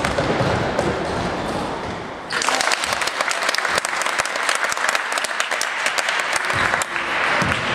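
Spectators applauding, the clapping breaking out suddenly about two seconds in and carrying on steadily over general crowd noise.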